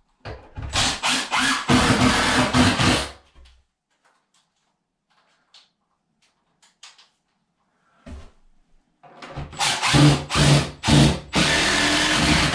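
Cordless driver sinking screws through the top rail of a wall cabinet into the wall, two screws about six seconds apart, each driven for about three seconds.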